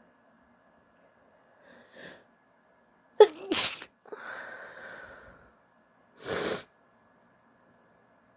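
A woman sneezing: one loud, sharp sneeze about three seconds in, after a faint short sound a second earlier. A long breathy trailing sound follows the sneeze, and a short breathy burst comes near the end.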